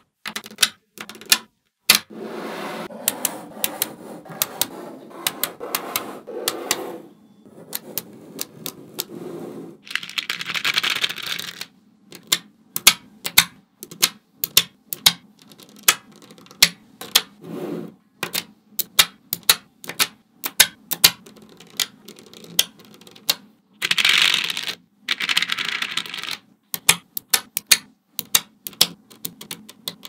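Small neodymium magnetic balls clicking as strips and sheets of them are snapped onto and pulled off a layered square of balls. The clicks are sharp and irregular, sometimes in quick runs, with short stretches of rattling in between.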